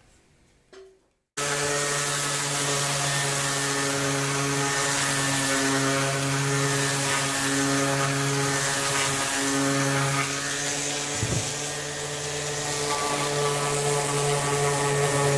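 Electric orbital sander running steadily on a pine frame, a motor hum with a sanding hiss. After about a second of near silence it starts abruptly at full level, and it dips slightly about two-thirds of the way through.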